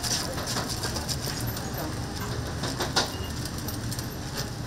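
Fried-chicken shop kitchen: crackling and clatter over a steady low hum, with one sharper knock about three seconds in.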